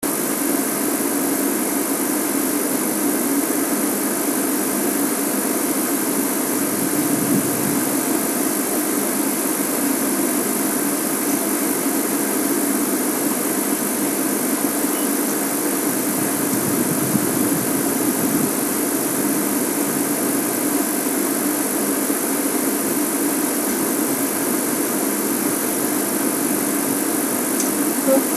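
Game-drive vehicle's engine idling steadily.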